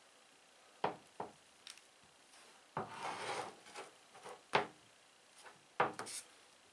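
Handling of a freshly glued black walnut knife handle and taped blade on a piece of cardboard: scattered wooden knocks, with a short stretch of rubbing about three seconds in, as the blade is turned to line it up straight.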